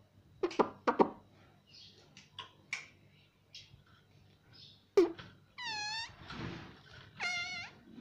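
Indian ringneck parakeet calling: a few sharp clicks and short chirps, then two drawn-out calls with many overtones, the first dipping and rising in pitch about five and a half seconds in, the second wavering about seven seconds in.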